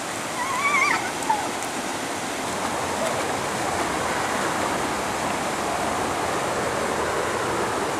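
Steady rush of a small waterfall spilling into a river pool. In the first second there is a short wavering, warbling call.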